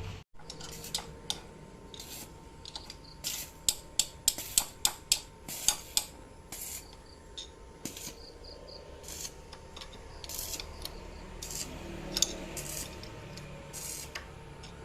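A run of short, sharp, irregular clicks and taps, thickest between about four and six seconds in, over a faint steady background.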